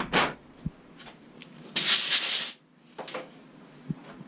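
A single hiss of pressurised spray, just under a second long, about two seconds in, with a few light clicks and knocks of parts being handled around it.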